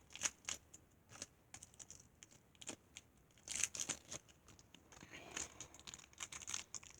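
Faint crinkling and tearing of a minifigure blind-bag wrapper being pulled open by hand, in scattered crackles with louder bursts about halfway through and near the end.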